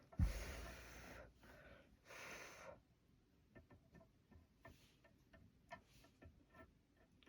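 A soft thump, then two short breathy rushes of air, then a run of small light clicks and taps as the soldered wire and connectors are handled.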